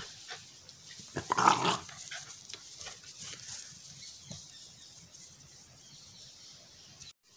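A dog barks briefly, about a second and a half in, over faint background hiss.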